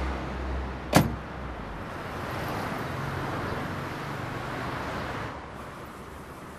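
A car door slams shut once, sharply, about a second in, over a low rumble that dies away soon after. Steady street noise follows and drops a little near the end.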